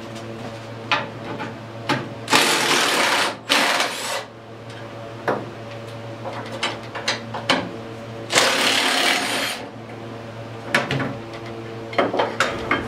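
Cordless impact wrench run in three short bursts on the crankshaft's flywheel nut to turn the engine over, with metallic clicks and clinks of tool handling between the bursts. The engine turns over counterclockwise but stops partway when turned clockwise, which the owner takes for a bent valve or something stuck in the cylinder.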